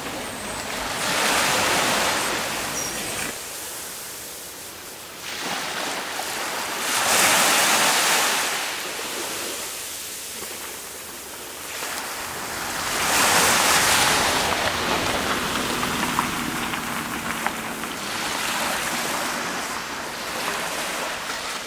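Surf on a beach: the rush of breaking waves swelling and fading about every six seconds, four times.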